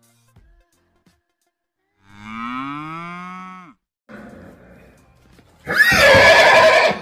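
A cow moos once, a rising call lasting about a second and a half. Near the end a horse neighs, louder and harsher.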